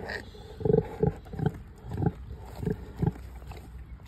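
Pigs grunting: about six short, low grunts in a row, roughly two a second.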